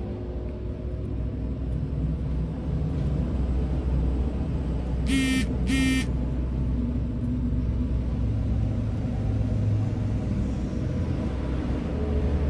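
Steady low background rumble, with two short high-pitched beeps about half a second apart a little over five seconds in.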